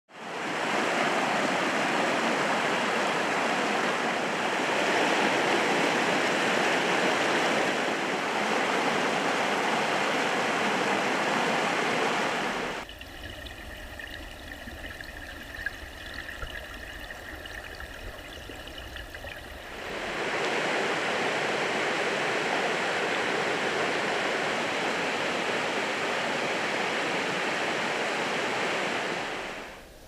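Creek water rushing, an even, loud hiss of flowing water. For about seven seconds in the middle it drops to a quieter low rumble with faint high tones, then the rush of water returns and fades out near the end.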